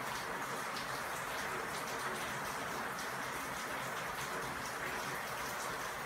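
Steady rushing noise with a faint fine patter, like rain falling.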